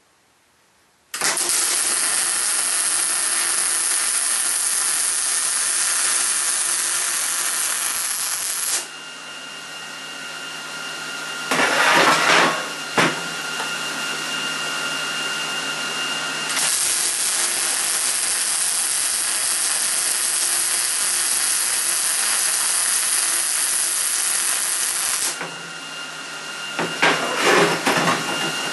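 Wire-feed welder running two welds on square steel tubing, each a steady, loud hiss lasting about eight seconds. Between the welds and near the end come a few sharp metal clanks.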